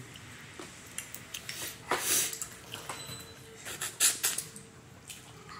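Boiled crawfish being peeled by hand over an aluminium foil pan: scattered small clicks and cracks of shells breaking, with two louder bursts about two and four seconds in.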